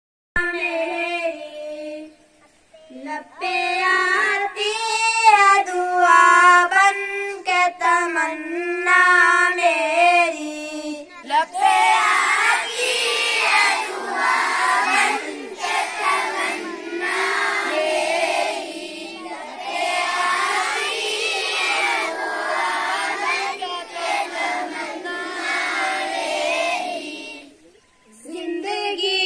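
Schoolchildren singing together at a morning assembly, with long held notes. For about the first eleven seconds the singing is a cleaner, thinner line with a short break about two seconds in; then it becomes a much fuller, blended group sound. It stops briefly near the end before the next line starts.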